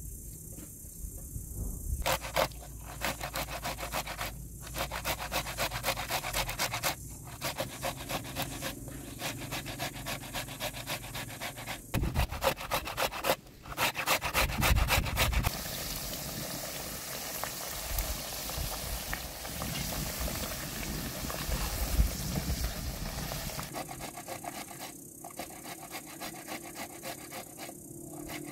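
Fresh tomatoes being grated on a stainless steel box grater: quick, rhythmic rasping strokes in runs, with brief pauses between them.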